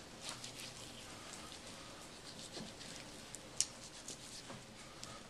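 Knife cutting fat off a raw beef brisket: faint wet slicing with scattered light clicks, one sharper click a little past halfway.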